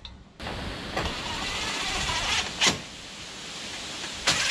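DeWalt cordless impact driver running bolts into the front of a Polaris RZR, its motor running with a few sharp loud bursts, the loudest near the end.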